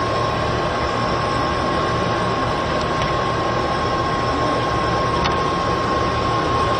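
Steady whirring noise with a constant mid-pitched tone, as from a kitchen exhaust fan over the stove, with a couple of faint taps of the spatula against the stainless steel pot as the chicken adobo is stirred.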